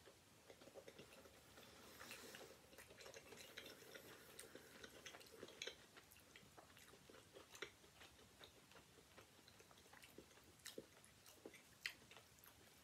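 Faint chewing of a mouthful of rice bowl with the mouth closed: scattered soft mouth clicks and smacks, with a few sharper clicks in the second half.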